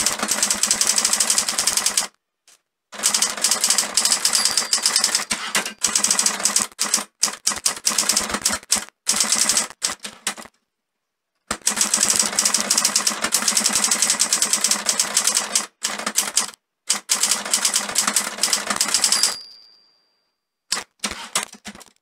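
Olympia SG1 manual office typewriter being typed on: quick runs of type bars striking the platen, broken by short pauses. Near the end the margin bell rings once and a few more clacks follow.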